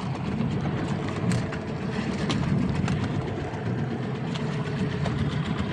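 Fishing boat's engine running steadily, a low drone with scattered light clicks over it.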